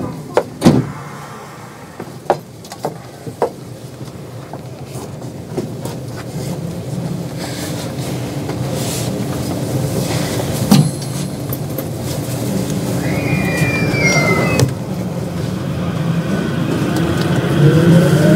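JR West 521 series electric train with Toshiba IGBT-VVVF traction inverters, pulling away from a station. A few knocks come in the first seconds, then a rolling rumble builds slowly. Over the last few seconds the motor whine rises in pitch as the train accelerates.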